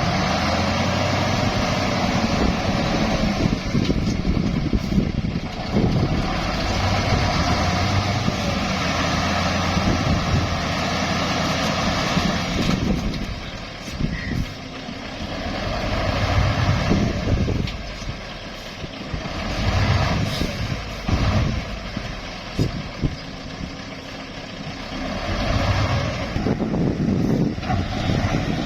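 Heavy diesel engine of a dump truck stuck in mud, revving in repeated surges that rise and fall every few seconds, with quieter stretches between them.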